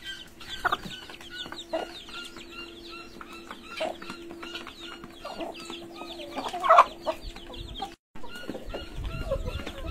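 Chickens clucking as they feed, with many short high chirps throughout and one louder call about seven seconds in.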